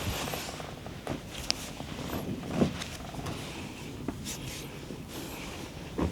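Massage handling noises: scattered small clicks and knocks from hands working on a body, with one louder low thump about two and a half seconds in.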